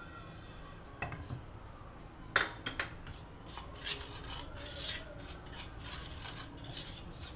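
Small spice seeds being dry-roasted and stirred with a wooden spatula in a non-stick frying pan: the spatula scrapes through the seeds against the pan, with a few sharp knocks, the loudest about two and a half and four seconds in.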